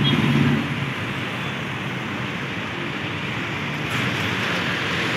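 Steady city road traffic noise, a little louder in the first second and again near the end.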